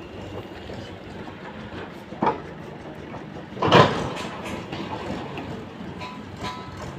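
Matchbox house burning, its match heads flaring in two short bursts about two and four seconds in, the second the louder. A steady background rumble runs underneath.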